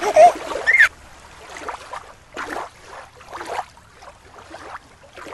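Water sloshing and lapping in short, irregular washes.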